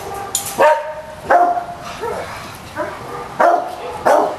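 Small dogs barking repeatedly: short, sharp, high-pitched barks, about one every half second to a second, with the loudest in the first half and near the end.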